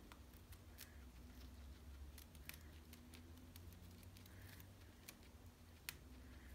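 Faint, irregular crisp clicks of a guinea pig nibbling on a woven willow ball, with one sharper click near the end, over a low steady room hum.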